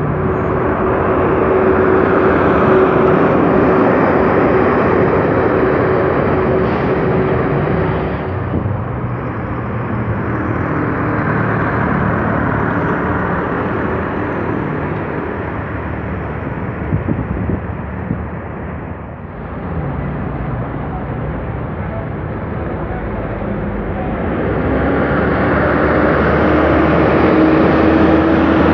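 City buses driving past one after another, engines running with road and tyre noise. A steady engine whine sits over the noise for the first several seconds, and another rises near the end as an articulated bus pulls by.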